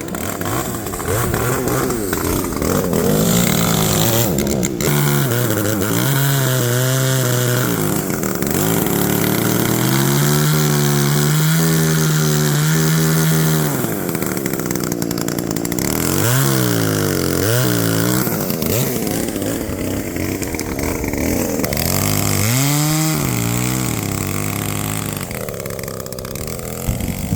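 Chainsaw running at high revs while cutting firewood, its engine pitch dropping and climbing back several times as the throttle is eased and opened again.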